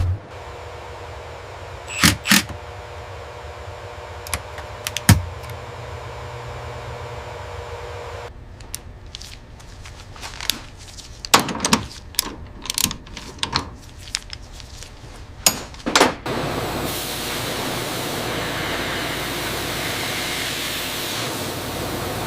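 Scattered sharp mechanical clicks and knocks over a steady hum, thickest between about eight and sixteen seconds in. A steady rushing hiss takes over after that.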